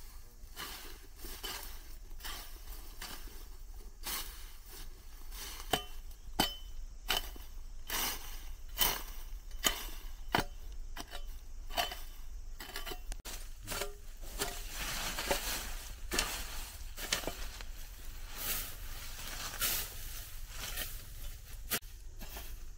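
Irregular sharp knocks and clicks, several a second, some with a brief clink, over a steady low hum.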